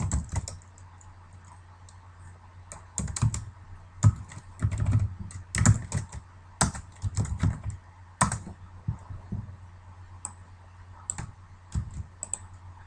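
Computer keyboard typing: irregular clusters of keystrokes with short pauses, starting about three seconds in. A steady low hum runs underneath.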